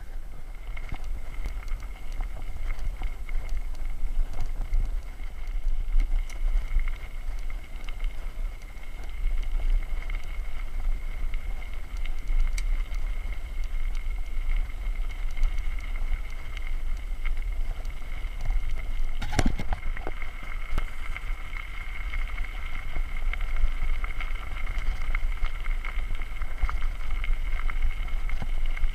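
Mountain bike ridden over asphalt and then loose gravel: a steady low rumble of wind on the handlebar camera's microphone and tyre noise, with a steady high whine over it and one sharp knock about two thirds of the way through.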